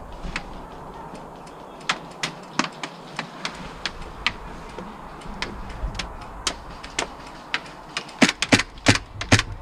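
Scattered sharp cracks and clicks of airsoft gunfire and BB hits, irregular and spaced out at first, then a quicker run of louder ones near the end.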